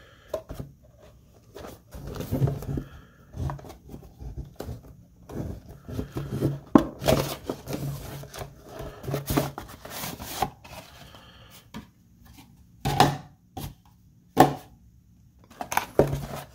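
Hands opening a cardboard trading-card box: irregular scrapes, taps and rustles of the cardboard, with a couple of sharper snaps near the end.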